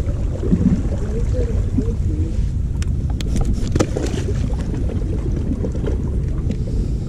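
Wind buffeting the microphone as a steady low rumble, with a few sharp clicks about three to four seconds in.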